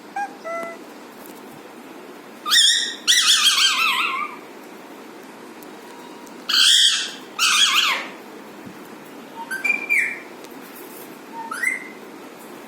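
Alexandrine parakeet calling: a few soft chirps at first, then loud squawks with a wavering pitch in two pairs about four seconds apart, and two short rising calls near the end.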